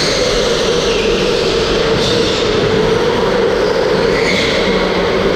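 Electric go-karts running hard on an indoor concrete track: a steady motor whine under road and tyre noise, with short tyre squeals as the karts slide through corners, near the start, about two seconds in and again near the end.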